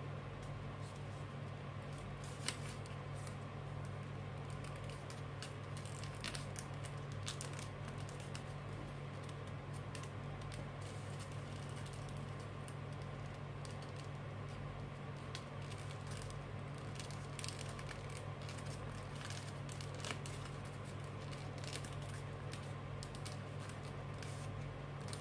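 Paper crinkling and rustling in short crackles as a sheet is folded and its creases pressed down by hand into an origami crane, with a sharper tick about two and a half seconds in. A steady low hum runs underneath.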